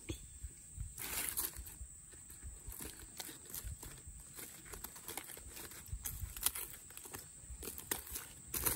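Charred aluminium foil crinkling and crackling as it is pulled open and worked with a knife, in irregular rustles and small clicks, a little louder about a second in and near the end.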